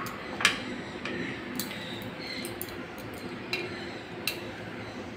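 Light taps and clicks as an eggplant and a kitchen knife are handled on a wooden chopping board: about five sharp ones roughly a second apart, the first the loudest.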